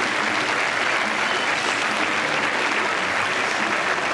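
Tennis crowd applauding steadily at the end of the match.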